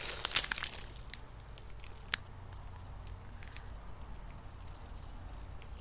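Small plastic packets crinkling and rustling as they are handled, loudest in the first second, then fainter scattered crackles with one sharp click about two seconds in.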